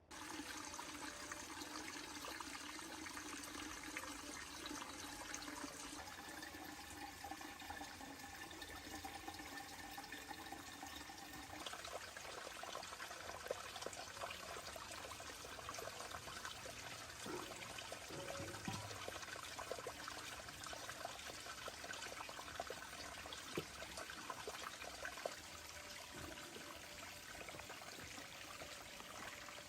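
Steady rush of running water, an even hiss with scattered small splashes and clicks.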